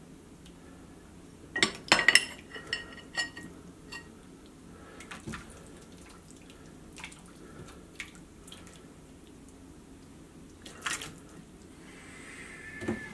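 Soup ladled from a metal ladle into a ceramic bowl: a cluster of clinks and splashes about two seconds in, then dripping and a few smaller clinks, with another pour near the end.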